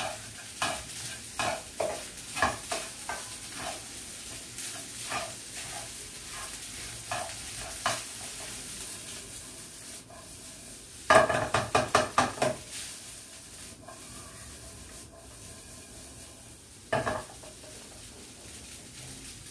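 Fried rice sizzling in a frying pan while a spatula scrapes and taps against the pan in an irregular series. About eleven seconds in there is a quick run of about eight loud clattering strikes, and there is a single strike near the end.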